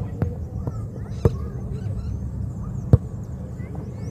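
A leather football struck by foot or head as it is kept in the air: three sharp knocks, the loudest near the end, over a steady low rumble, with birds calling.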